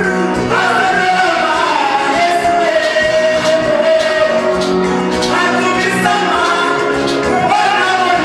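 Live gospel worship song: a man singing the lead line into a microphone over guitar accompaniment, the melody held in long sustained notes.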